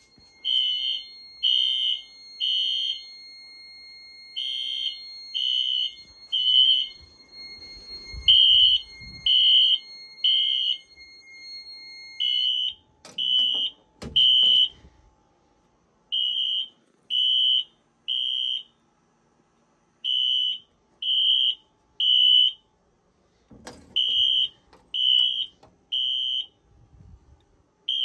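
Wheelock fire alarm horns sounding in sync in the temporal-three evacuation pattern: three short beeps, a pause, three more, over and over, the building in alarm after a smoke detector magnet test. A steady high tone runs underneath and stops about twelve seconds in, and a few knocks and handling sounds come in between.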